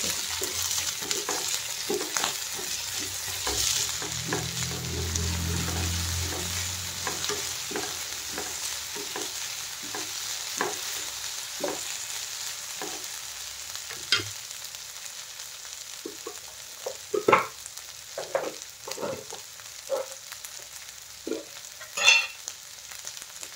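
Onions, potatoes, broccoli and peas sizzling in oil in a frying pan while a wooden spatula stirs them, with repeated short scrapes and knocks of the spatula against the pan. The knocks come often at first, then more sparsely, with one louder knock near the end.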